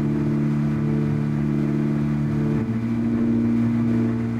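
Yamaha 60 outboard motor running steadily at speed as the boat planes. Its pitch shifts lower and changes tone about two and a half seconds in.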